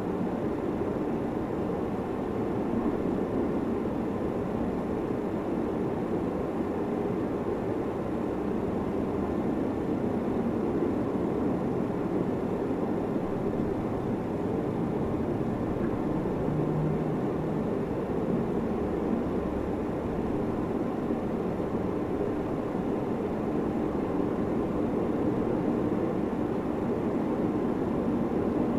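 Steady droning background noise with a faint hum, even in level throughout and without separate strokes or clicks.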